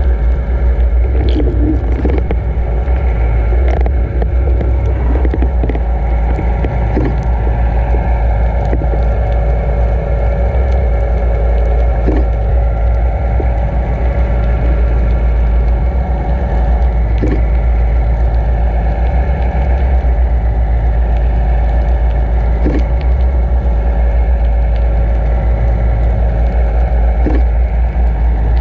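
Steady low underwater rumble of a camera being towed through the water, with the towing boat's engine hum carried through the water as a few steady tones above it. Scattered faint clicks throughout.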